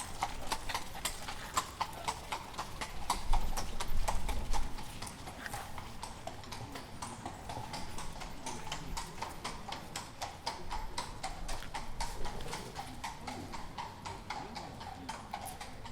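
Horses walking on a paved street, their hooves clip-clopping in a steady stream of sharp knocks, a few per second. A low rumble swells underneath about three to five seconds in.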